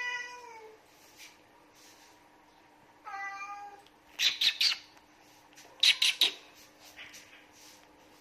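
A cat meows, first a falling call and then a shorter level one about three seconds in, over a faint steady low hum. About four and six seconds in come two quick runs of three sharp, loud clicks.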